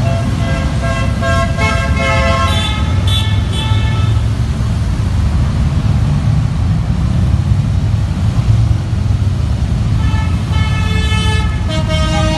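A stream of Harley-Davidson V-twin motorcycles riding past with a steady, loud low engine rumble. Horns honk over it in the first few seconds and again near the end.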